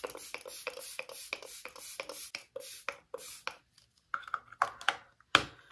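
Maybelline Lasting Fix setting spray's pump bottle spritzed rapidly over and over, about four or five short hissing sprays a second, for the first three and a half seconds. Then a few fainter clicks and one sharper click about five seconds in.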